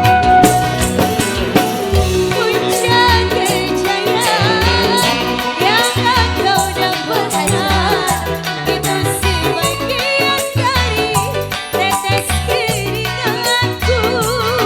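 Indonesian folk-pop band music: an ornamented lead melody with wide vibrato over a steady beat of drums and bass.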